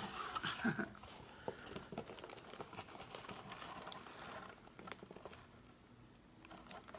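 Cardboard snack box being opened and its contents handled: soft rustling and crinkling of paper and packaging, with scattered light taps and clicks.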